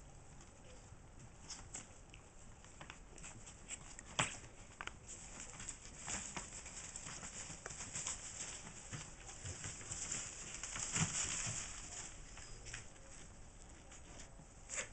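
Newspaper and shredded paper rustling and crinkling under French Bulldog puppies scrambling and play-fighting, with scattered light taps and scuffs of small paws. A sharp tap comes about four seconds in, and the rustling is loudest around ten to eleven seconds in.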